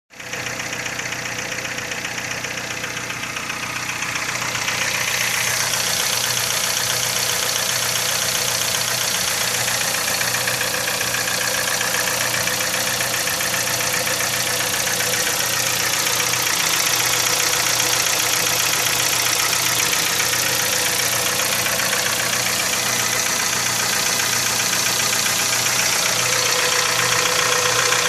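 Petrol engine running with a hard, diesel-like knock, growing louder about five seconds in.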